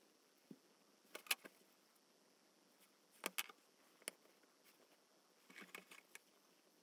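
Faint, scattered taps and clicks of a ruler and wooden parts being handled and set down on a cutting mat, in a few short clusters, the sharpest about a second in.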